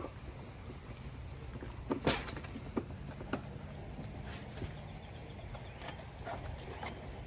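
Bulldog puppies moving about: scattered light taps and knocks, the loudest about two seconds in, over a steady low hum.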